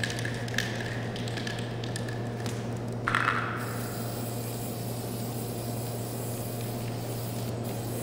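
Aerosol spray-paint can being shaken with a scatter of rattling clicks, then sprayed in a long hiss from about three seconds in as paint goes onto a cotton T-shirt. A steady low hum runs underneath.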